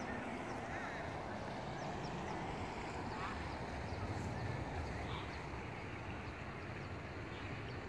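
Steady outdoor background noise with scattered faint bird calls.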